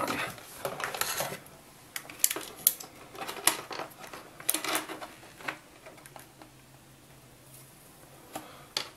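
Scattered light clicks and clinks of small tools and wires being handled on a wooden work table, mostly in the first six seconds, with one more click near the end, over a faint steady low hum.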